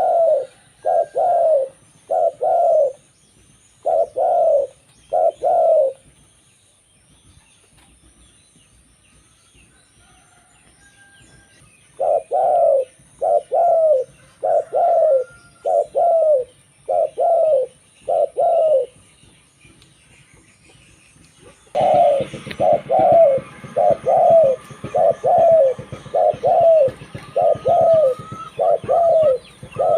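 Zebra dove (local perkutut) cooing in runs of short rolling notes in pairs, about one pair a second, breaking off twice for several seconds. Other small birds chirp faintly in the background, louder from about two-thirds of the way in.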